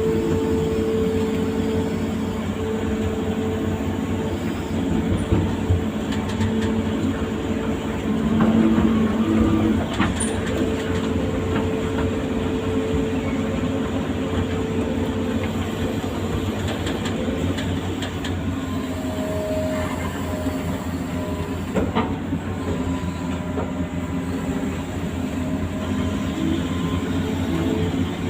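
Amphibious excavator's diesel engine running steadily under work, with a couple of sharp metallic knocks from the machine, one about a third of the way in and one about three-quarters of the way through.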